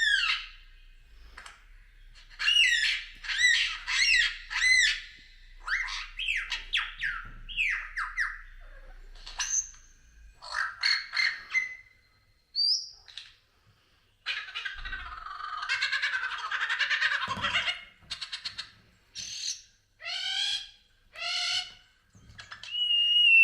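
Bird calls, most likely a recording played back: a series of varied squawks, chirps and whistled notes, several in quick repeated runs, with a longer harsh, rasping call a little past the middle.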